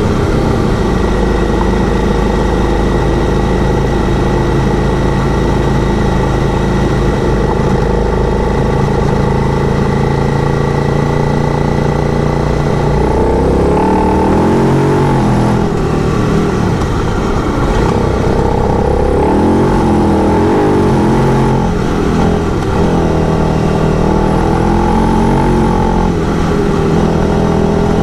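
Motorcycle engine running at a steady cruise, then from about halfway revving up and down again and again as the throttle and gears are worked.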